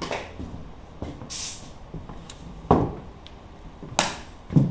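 A brief hiss of rubber-based contact adhesive being sprayed about a second in, then three sharp wooden knocks and thuds, the loudest near the end.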